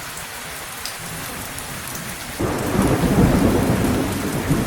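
Steady rain falling, then a low rumble of thunder starts suddenly about halfway through and carries on.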